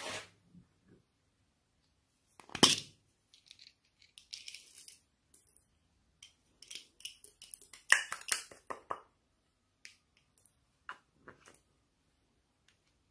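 Small plastic containers and tubes being handled and emptied: irregular clicks and taps, the sharpest about two and a half seconds in and a cluster around eight seconds, with light crackling between.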